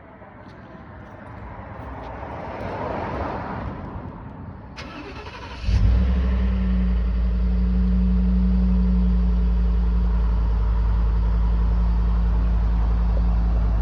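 Cold start of a 2014 Ford F-150's 5.0 Coyote V8. After a few seconds of rising noise and a click, the engine fires about six seconds in and settles into a steady cold idle.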